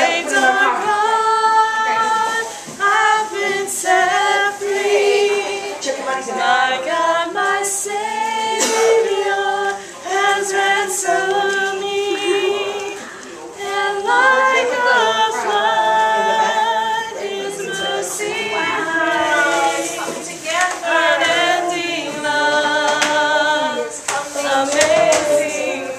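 Young women singing a song together without accompaniment, holding long notes.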